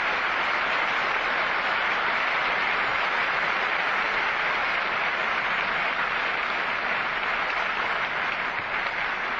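Audience applauding: a long, steady round of dense clapping.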